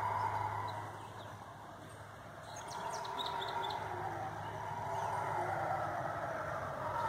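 A troop of howler monkeys howling: a long, low rolling roar that ebbs between about one and two and a half seconds in, then builds again.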